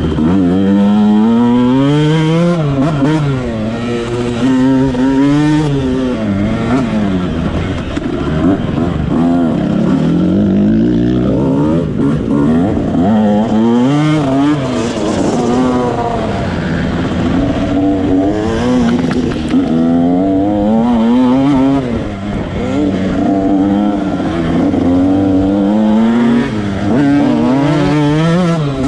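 Motocross bike's engine being ridden hard, heard close up from the bike itself. It revs up, climbing in pitch, then drops back, over and over.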